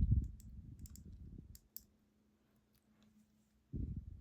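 Small metal clicks of tweezers handling the driver pins of a disassembled pin-tumbler lock, with dull handling thumps at the start and again near the end.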